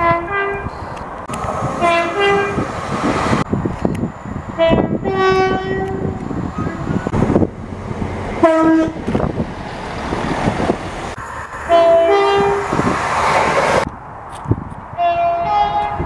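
A string of about six two-tone train horns from different passenger trains, each a short low-and-high blast. Between the blasts there is the rumble and rush of trains running past, and the background changes abruptly from clip to clip.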